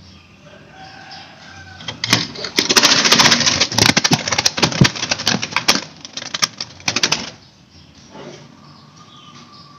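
Rapid clattering and flapping of a zebra dove scrambling in its wire cage. It starts about two seconds in, lasts about five seconds, then stops abruptly.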